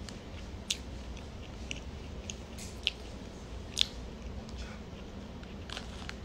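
A person chewing garlic baguette bread close to the microphone, with short sharp crunches about once a second, the loudest about three and four seconds in.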